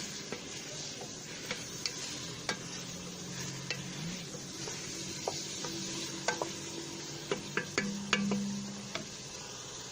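Beef and chopped red onion frying in oil in a pot: a steady sizzle, with scattered clicks of a utensil stirring against the pot.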